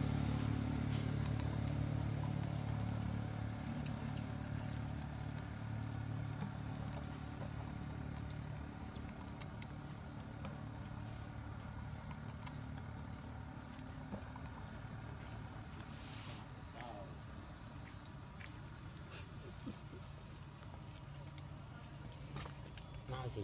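Steady, high-pitched insect chorus of crickets or cicadas holding two constant tones throughout. A low engine rumble fades away over the first several seconds.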